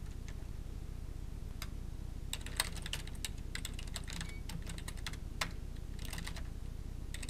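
Computer keyboard keys clicking in short bursts of typing, with pauses between, over a steady low hum.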